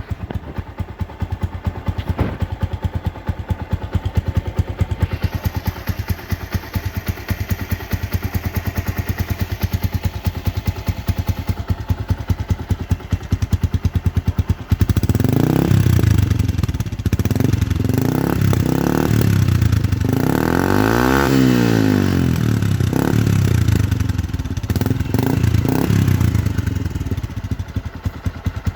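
Yamaha Sniper MX 135's single-cylinder four-stroke engine breathing through an MVR1 aftermarket exhaust pipe, idling with an even pulse. About halfway through it is blipped and revved repeatedly, louder, with one long rev rising and falling near the middle of the second half.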